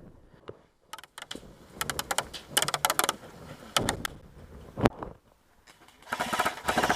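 Airsoft guns firing: sharp pops and clicks in short irregular strings, ending in a dense rapid burst near the end.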